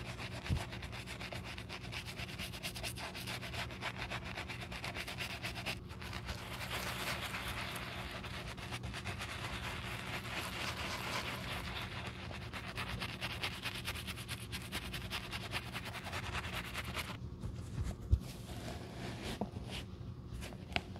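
Bristle brush scrubbing foamy cleaner into the heel and sole edge of a leather slipper: fast, continuous scratchy strokes. The scrubbing stops about seventeen seconds in, leaving a few light knocks and handling sounds.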